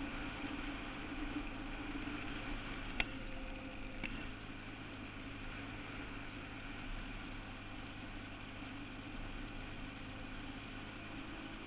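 Suzuki Quad Runner 160 ATV's small single-cylinder four-stroke engine running steadily at an even pitch, with no revving. A sharp click about three seconds in and a fainter one about a second later.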